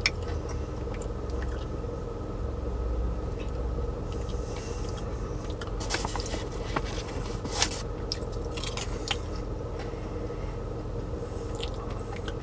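Cheddar popcorn being chewed with crisp crunches, and the plastic snack bag crinkling as a hand reaches back into it, over a steady low hum.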